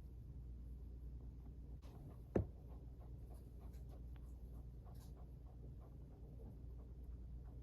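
Faint scratching and light clicks over a low hum, with one sharper knock about two and a half seconds in.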